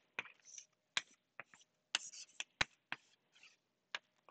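Chalk writing on a blackboard: about ten sharp, irregular taps of the chalk with short scratchy strokes between them.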